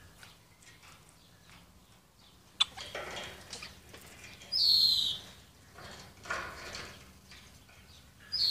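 African grey parrots calling: a sharp click and some rough, raspy calls, then a loud clear whistle about halfway through that falls slightly in pitch, with another rasp later and a second whistle starting at the end.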